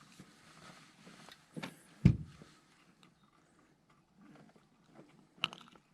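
A single heavy thump about two seconds in, with a softer knock just before it and a short sharp click near the end.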